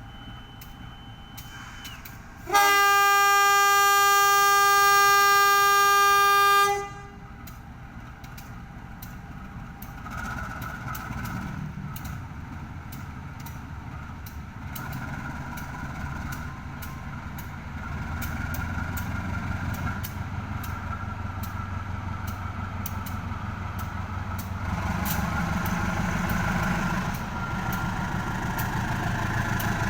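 Diesel locomotive horn sounding one long blast of about four seconds, a few seconds in. Then the train starts pulling away, its engine and rolling noise building steadily as it departs the station.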